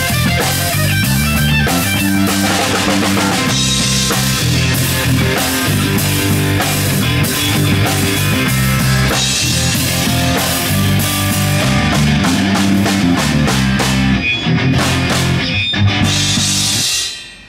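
Live rock band playing without vocals: electric guitar, bass guitar and drum kit. Near the end the band plays a run of short, sharp hits together, then the sound falls away steeply just before the end.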